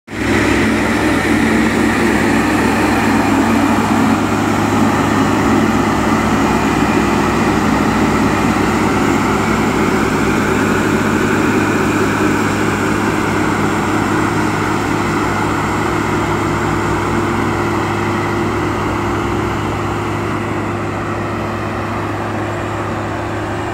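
Diesel engine of a Plasser track maintenance machine running steadily as the machine rolls past on the rails, with a low hum and a wide rumble, slowly fading over the second half.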